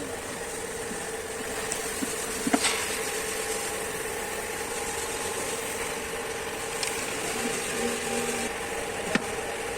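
A steady mechanical hum, with a few sharp metallic clicks of tool work: one about two and a half seconds in, a faint one near seven seconds, and one about nine seconds in.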